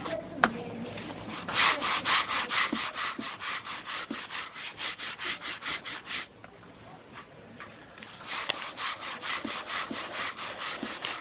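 A stiff brush scrubbing laundry by hand: quick, even back-and-forth strokes, about four or five a second. They stop for a couple of seconds midway and then start again. A single sharp knock just before the scrubbing begins is the loudest sound.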